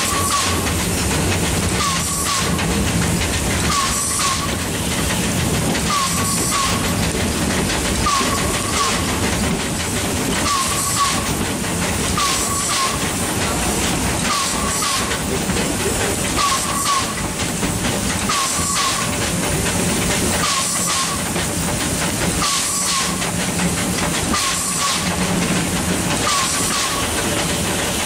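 Small steam locomotive running, heard from its front end: a continuous hiss of steam over a low rumble, with a short regular beat about every second and a half.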